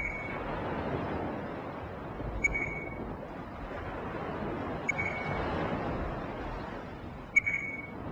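Steady wind and sea noise on a ship's open deck, with a short, high beep repeating about every two and a half seconds.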